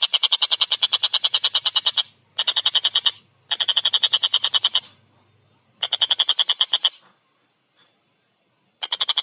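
Collared kingfisher (tengkek buto) giving a fast, harsh rattling chatter of about ten notes a second. The chatter comes in four bursts with short breaks, falls silent for nearly two seconds, then starts again near the end.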